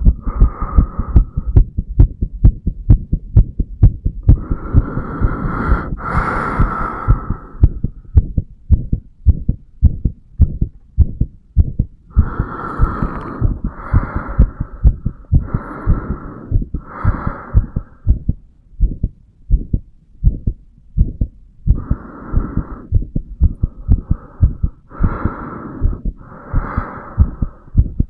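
An adult man's heart beating, recorded on the chest over the mitral valve area: a steady run of low, muffled lub-dub thumps. At times, breath sounds come through as hissy whooshes about a second long, several in a row.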